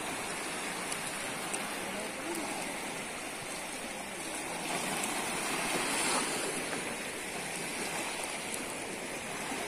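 Small sea waves washing over a rocky shore in a steady wash, swelling a little about halfway through.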